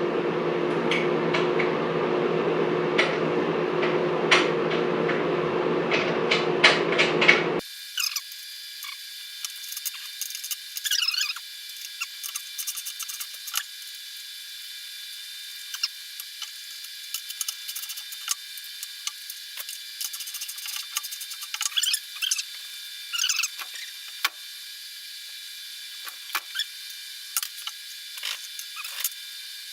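Small metal clicks, taps and scrapes of nuts being fitted and turned onto bolts. A steady low hum runs underneath and cuts off abruptly about seven and a half seconds in, after which the clicks sound thin.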